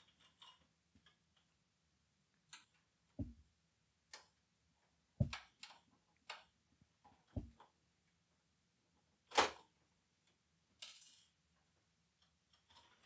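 Scattered clicks and taps of hard plastic and metal parts being handled as a CD-ROM drive is worked out of a desktop Mac clone's case, with three dull knocks in the middle, the sharpest click about nine seconds in and a short scrape soon after.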